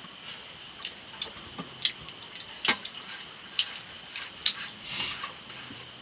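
Irregular sharp, drip-like clicks and small taps, roughly two a second, over a faint steady high-pitched hum.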